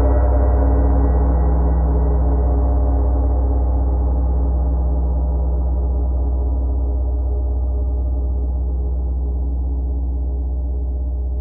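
Large gong ringing on after a stroke, its deep hum and many overtones fading slowly and evenly, with no new strike.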